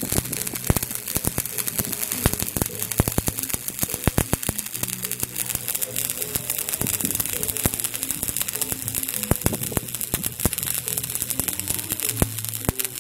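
Stick-welding arc crackling and hissing steadily as a 1/8-inch 6013 electrode runs a bead, with frequent sharp pops. Background music plays underneath.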